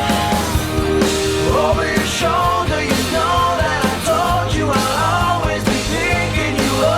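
Rock song with a sung melody over bass and drums.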